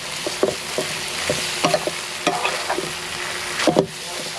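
Squid and holy basil stir-fry sizzling in a hot pan as it is stirred, with repeated short scrapes and knocks of the utensil against the pan, the loudest a little before the end.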